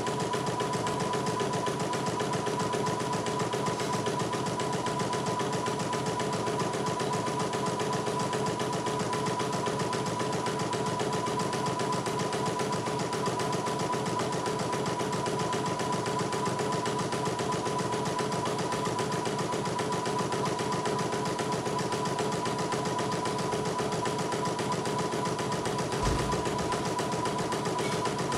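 CNY E900 portable embroidery machine stitching a design, its needle striking in a fast, even rhythm over a steady motor whine. A brief low thump near the end.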